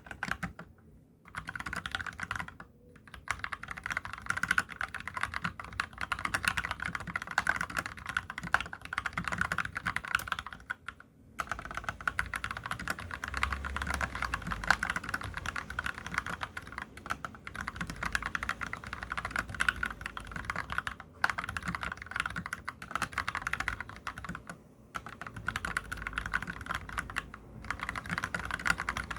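Steady fast typing on a COX CAREVEL87 tenkeyless mechanical keyboard fitted with spray-lubricated Gateron Brown tactile switches, with no added sound dampening in the case. The keystrokes run in a dense stream broken by a few brief pauses.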